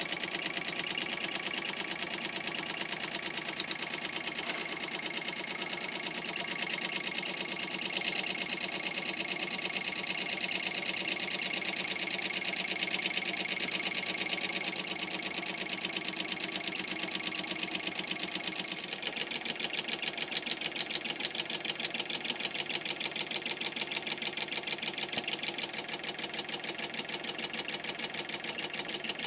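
Wilesco D430 live steam model engine running at speed, a rapid, even mechanical beat from its small steam cylinder and spinning flywheels. The beat becomes a little more pulsing about two-thirds of the way through.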